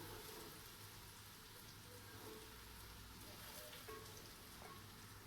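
Near silence: room tone of a faint steady hiss with a low hum.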